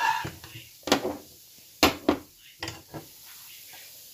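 Spoon scraping and knocking against a non-stick kadhai as cooked coconut-and-jaggery filling is stirred and scraped out into a bowl: about six sharp knocks in the first three seconds, then quieter.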